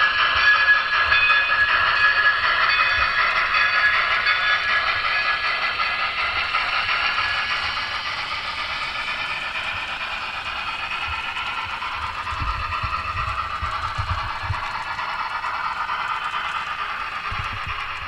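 Paragon 3 DCC sound decoder in an N scale BLI USRA steam locomotive, its small onboard speaker playing steam-locomotive running sounds as the model moves along the track, slowly fading as it pulls away. A few low thumps come in the second half.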